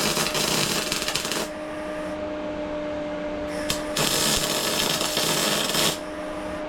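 Welder humming steadily, with two bursts of welding-arc crackle of about two seconds each, the first at the start and the second about four seconds in.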